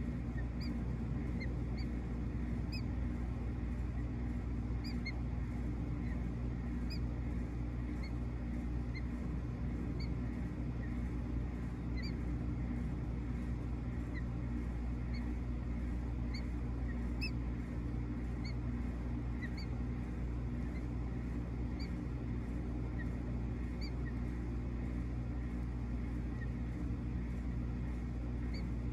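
A steady low mechanical hum runs throughout, with short high bird chirps repeated every second or two over it.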